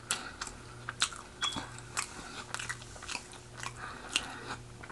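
A person chewing food close to the microphone: irregular sharp mouth clicks, about three a second, over a faint low hum.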